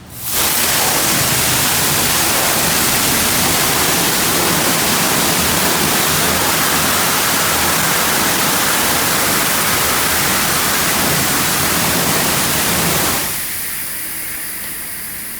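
Touch-free car wash undercarriage spray blasting water, a loud steady hiss that starts suddenly and drops off sharply about 13 seconds in, leaving a quieter hiss.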